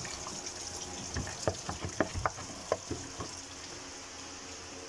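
Engine coolant trickling and dripping out of the opened thermostat housing, with scattered light clicks and knocks as the metal housing is handled.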